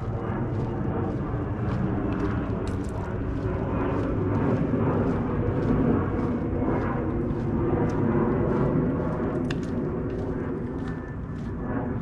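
Footsteps of a walker, about two steps a second, over a steady low rumble of wind on a GoPro microphone.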